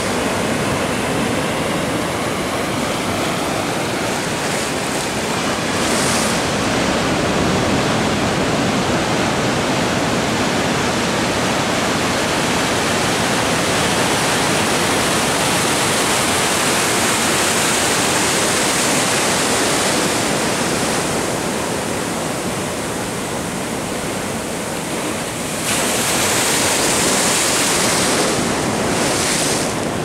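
Sea water surging and washing around pier pilings, a steady rushing noise that swells louder about a fifth of the way in and again near the end.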